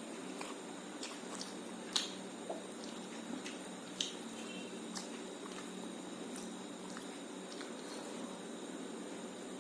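Wet squishing and chewing of a person eating rice with egg curry, with scattered small clicks, the sharpest about two and four seconds in.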